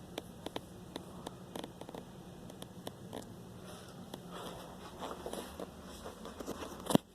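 Scattered light clicks and rustling over a faint steady low hum, with one sharp knock near the end.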